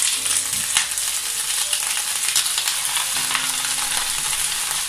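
Fresh spinach leaves frying in hot oil in a pan: a steady sizzle with scattered crackling pops.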